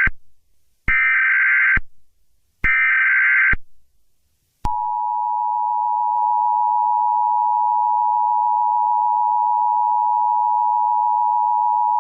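Emergency Alert System tones: the end of one SAME header data burst, then two more buzzing digital data bursts of about a second each with short gaps. About four and a half seconds in, the steady two-tone EAS attention signal (853 and 960 Hz) begins and holds. Together these announce an incoming emergency alert.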